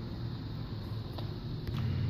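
Steady low hum with a few faint clicks and small splashes as soaked sago pearls and their water are poured from a cup into a pot of hot milk.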